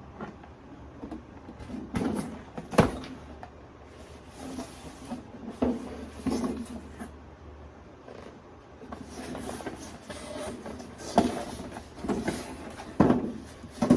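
Scattered knocks, taps and rustling of things being handled, with a few sharp clicks standing out, the loudest about three seconds in and a cluster near the end.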